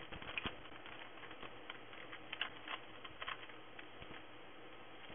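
Rubik's Cube layers being turned by hand: irregular quick plastic clicks and clacks, bunched in short flurries.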